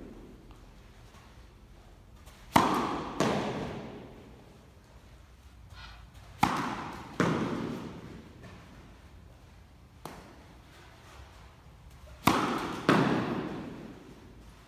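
Tennis racket striking tennis balls, three hits, each followed about half a second later by a second thud, every impact echoing through a large indoor hall.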